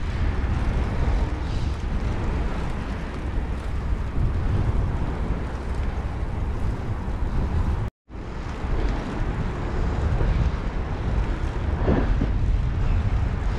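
Wind buffeting the microphone of a camera riding on a moving bicycle: a steady, loud rumble. The sound drops out for a moment about eight seconds in.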